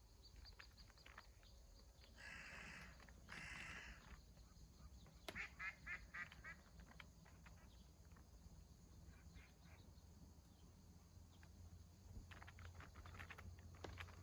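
Faint bird calls over a low steady hum: two harsh calls a little over a second apart, then a quick run of about five short notes, with scattered softer chirps afterwards.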